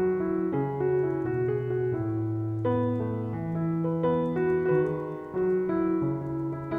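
Background piano music: held notes that change about once or twice a second.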